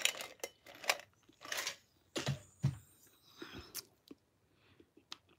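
A person crunching ice cubes taken from a tumbler, chewing in a string of short, irregular crunches.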